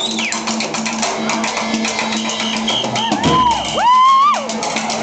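Drum kit played live along with music: quick, dense drum hits under a steady low tone, while single pitched tones swoop up and down and bend, the loudest rising about four seconds in.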